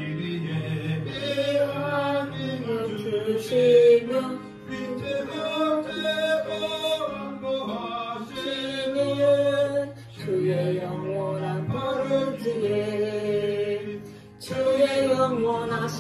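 Background music: a song with a singing voice over held low notes.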